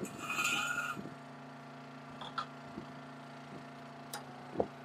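Steel push-pier parts being handled: a short scraping hiss in the first second, then a few light metallic clicks and knocks as the hydraulic drive cylinder is set onto the pier tube, over a steady low machine hum.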